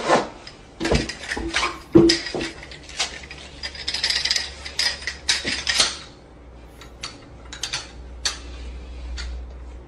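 Irregular sharp clicks and rattling clatter of a small hard object being handled. They come thick for about six seconds, then thin out to a few scattered clicks.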